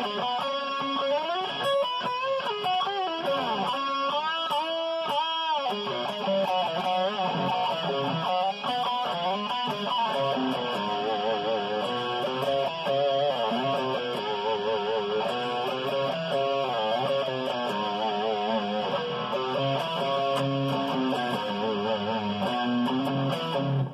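Ibanez electric guitar playing a lead line, with string bends and fast vibrato on held notes.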